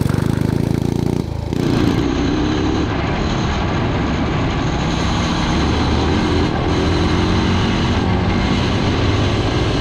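Tillotson 225 single-cylinder racing engine in a motorcycle running hard at high revs as the bike is ridden. The sound shifts about a second and a half in, from the bike heard from beside the track to the engine heard from a camera on the bike.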